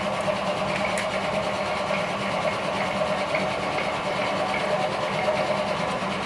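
A steady machine drone, like a small motor running, with one sharp click about a second in as the attendant handles the air rifle.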